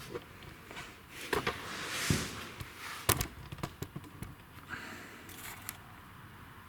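Handling noise: scattered light knocks and clicks, with a short rustle about two seconds in and a sharp click about three seconds in.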